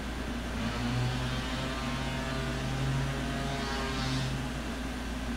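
A steady low motor drone that swells about a second in and fades again near the end, over a constant low hum.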